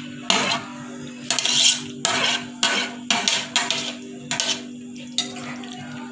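Steel spoon scraping and clinking against a ceramic plate as fried baby potatoes are pushed off it into a pan. The scrapes come in a quick, uneven series, about two a second.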